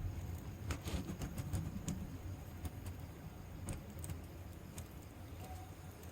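Wood fire in a fire pit crackling, with irregular small pops and snaps over a low steady flame rumble.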